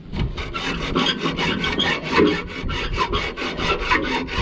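Quick, even rasping strokes of metal scraping on metal, about four or five a second, as a copper pipe is worked loose inside a scrap boiler.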